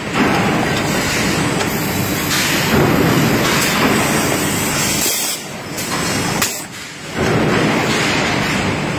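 Loud, steady noise of cookware production-line machinery running: a rotary machine and a belt conveyor handling non-stick pans. It dips briefly twice in the second half.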